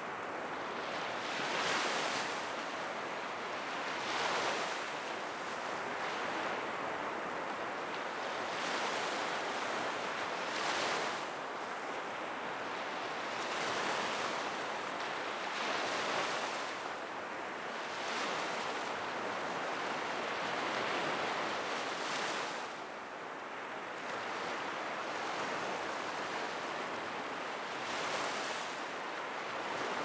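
Black Sea surf: small waves breaking and washing up a beach one after another, a new surge of hiss every two to three seconds.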